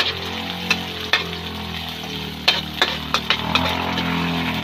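Onion and garlic sizzling in hot oil in a wok, stirred with a metal spatula that clinks and scrapes against the pan. A low steady hum runs underneath and fades out just after the end.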